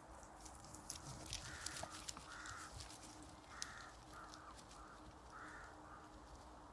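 A crow cawing, a series of about eight short harsh caws, with a few sharp clicks among the first calls.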